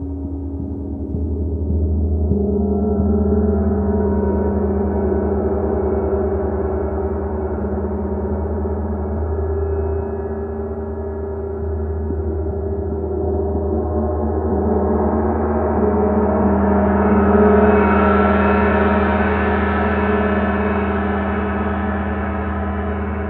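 Several Paiste Bronze gongs played together with a felt-headed mallet, ringing in a dense, sustained wash of many overlapping tones over a deep hum. It swells about two seconds in, eases a little midway, and swells again, brighter, near the end.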